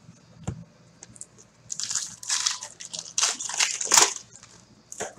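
Foil wrapper of a hockey trading-card pack being torn open and crinkled by hand, in several crackling bursts from about two to four seconds in. A single light tap about half a second in.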